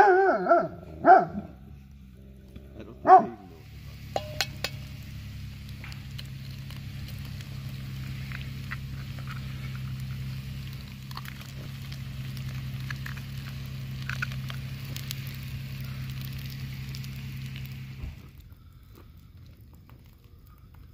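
Dogs barking and yelping in play, three sharp calls in the first few seconds. Then meat and diced potatoes sizzling steadily in a cast-iron pan over a campfire, a few small clicks near the start of the frying; the sizzle cuts off near the end.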